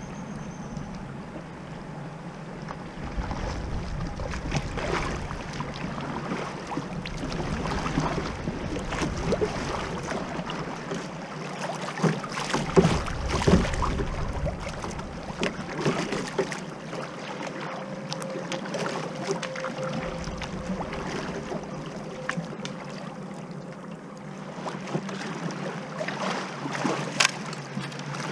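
Kayak paddle strokes and rippling river water: steady riffle noise, scattered splashes from the paddle, and gusts of wind buffeting the microphone, the loudest about halfway through.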